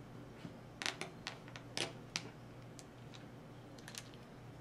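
Light clicks and ticks of a small precision screwdriver working a screw in a knife's plastic (FRN) handle scale: a quick run of sharp clicks about a second in, then a few fainter scattered ticks.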